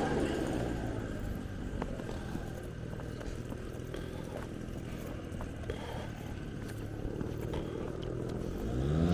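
Steady low rumble of background traffic, with a few faint clicks.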